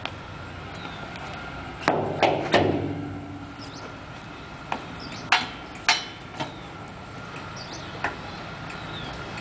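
Metal knocks and clanks from a manual hydraulic drum lifter being worked by hand: three sharp knocks close together about two seconds in, then single knocks every second or so.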